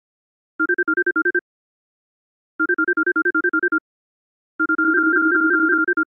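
Electronic phone ringtone: a fast warbling trill that flips between two close pitches, sounding as three rings about two seconds apart. The third ring is longer than the first two.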